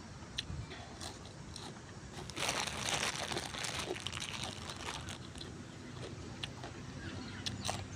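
A person bites into and chews crunchy raw vegetables, with the loudest burst of crunching about two and a half seconds in.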